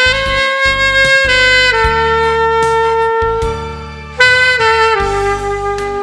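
Saxophone playing a slow melody of long held notes over a backing track with bass and drums. The phrase fades about three seconds in and a new one starts just after four seconds.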